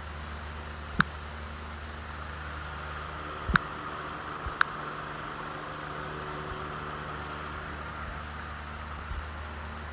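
Steady low mechanical hum with a hiss over it, and three sharp clicks about one, three and a half and four and a half seconds in.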